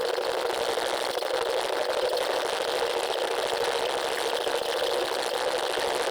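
A power tool working steel without a break, a steady harsh mechanical noise, in the course of cutting the old brake arm off the e-bike.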